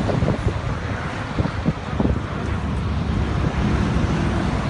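Wind buffeting the microphone over the steady running of a wheeled excavator's diesel engine, with a few faint knocks around the middle.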